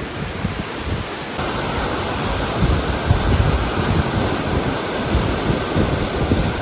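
Wind buffeting the microphone: a steady rushing noise with gusty low rumbles, changing in character about a second and a half in.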